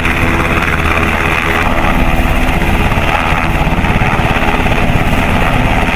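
H-60 Black Hawk-type military helicopter hovering close by: a steady, fast chop of the rotor blades over the engine noise.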